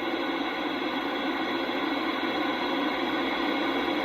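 CB radio static: a steady, even hiss through the receiver's speaker on an open channel between transmissions.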